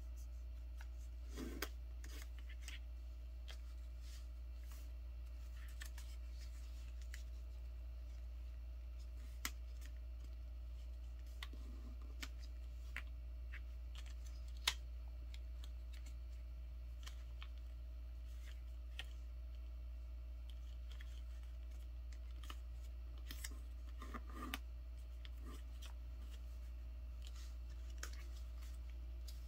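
A sheet of paper being folded and creased by hand on a tabletop: scattered soft taps and crinkles, with one sharper click about fifteen seconds in, over a steady low hum.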